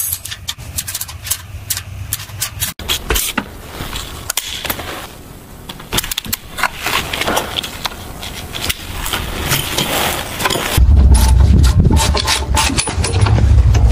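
Hand tools on steel: a wrench clicking and scraping on a rusted bolt, with metal clinks and rubbing at rusty fittings. About eleven seconds in, a loud low rumble joins.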